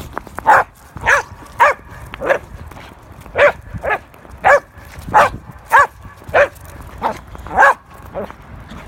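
Small terrier barking repeatedly in short, high yaps, about a dozen of them at a steady rate of nearly two a second, with a couple of brief pauses.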